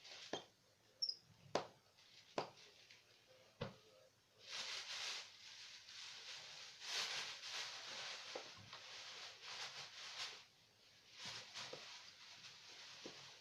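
Light handling noise: a few sharp clicks and taps, then several seconds of scratchy rubbing or scraping that pauses briefly about ten seconds in and starts again.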